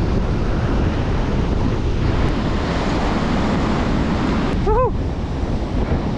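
Surf breaking and washing up the beach, with wind buffeting the microphone. A short rising-and-falling call sounds once near the end.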